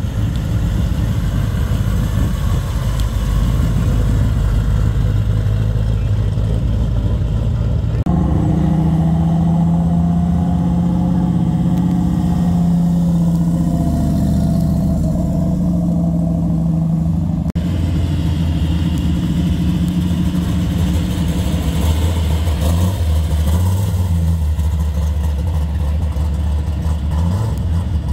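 Classic American car engines running at idle and light throttle as the cars pull slowly away one after another, with a low, steady rumble. The sound cuts abruptly from one car to the next about eight seconds in and again near eighteen seconds.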